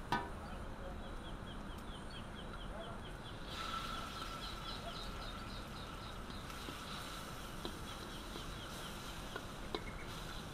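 Rural outdoor ambience: a high chirp repeated rapidly, about five times a second, with a faint steady whistling tone joining partway through. There are a few light taps of a wooden spatula in a wok.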